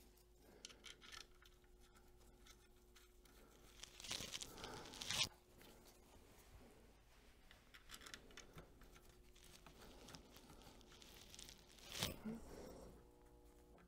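Faint rustling and crinkling from nitrile-gloved hands handling a paper towel, louder about four seconds in and again near the end. A faint steady hum runs underneath.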